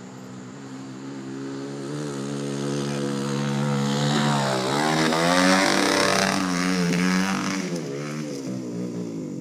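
Dirt bike engine running and revving, getting louder as it comes closer. About halfway through the pitch dips and then climbs back up, and it eases off a little near the end.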